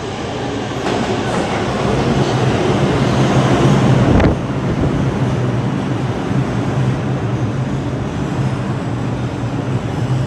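New York City Subway R142 train pulling into a station, its wheels running on the rails with a steady low propulsion hum. The noise builds as it comes in, drops abruptly about four seconds in, and then goes on steadily as the cars roll slowly past the platform.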